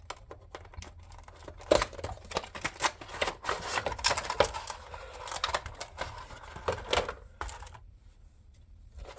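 A cardboard model box being opened and its plastic insert handled: a run of sharp clicks, taps and scraping rustles from about two seconds in, dying away about a second before the end.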